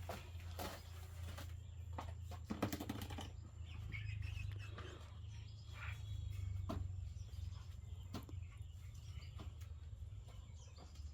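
Chickens feeding: scattered chirps and clucks with irregular sharp clicks and taps, over a steady low hum.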